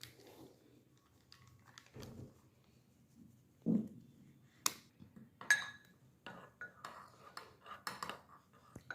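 Kitchen utensils clinking and tapping against a bowl while pancake ingredients are handled: scattered clinks, a couple with a short ring, then quicker light taps near the end.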